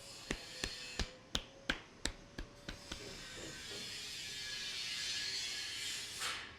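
A barber's hands tapping rhythmically on the head during an Indian head massage: sharp, crisp taps about three a second. About three seconds in they give way to a hissing rub of hands over the hair and scalp, which stops shortly before the end.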